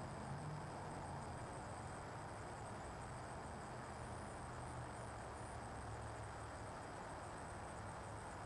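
Faint, steady outdoor ambience: a thin high insect trill over a low steady hum and hiss.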